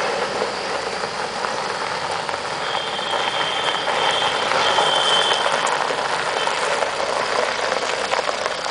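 Tata Safari Storme SUV's diesel engine running as it is driven in tight circles on loose dirt, with the steady noise of its tyres scrubbing over the gravel.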